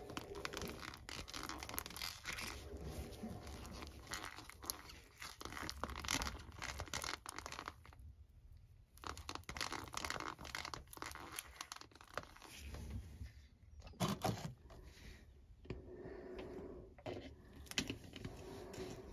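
Wooden stir stick scraping round a plastic cup while mixing thickened epoxy, the cup crinkling in gloved hands: a soft, irregular run of scrapes and crackles with a short pause about eight seconds in.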